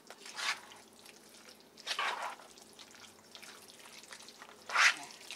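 A fork stirring chicken, mixed vegetables and thick sauce together in a bowl: three wet, squishing strokes, about half a second in, around two seconds in and near the end, the last the loudest.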